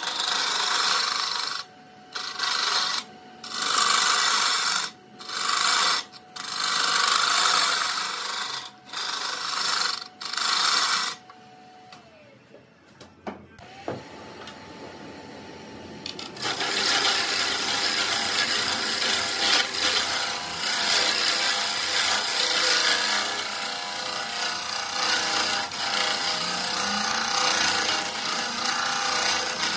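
A hollowing tool cutting inside an oak burl hollow form spinning on a wood lathe, over the lathe motor's steady hum. It comes first as about seven short strokes with brief gaps, then a quieter pause partway through, then steady continuous cutting to the end.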